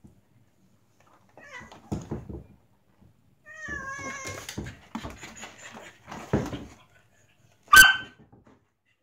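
A tabby cat and a fluffy white dog play-fighting, with bouts of scuffling. A drawn-out, wavering yowl comes a little before halfway, and a sharp, short cry, the loudest sound, comes near the end.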